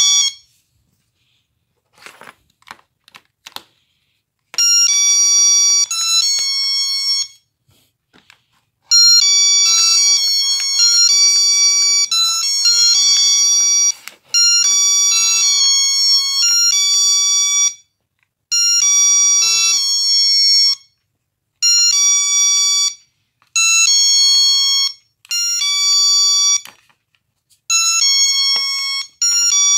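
GE door alarm sounding: loud, high electronic tones that step through several pitches like a short tune, repeated in rounds of a few seconds with short gaps, starting about four and a half seconds in. A few light clicks come just before.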